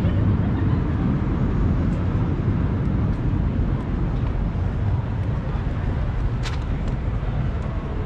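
Night-time city street ambience on a riverside walk: a steady low rumble with a faint murmur of distant voices and a brief sharp tick about six and a half seconds in.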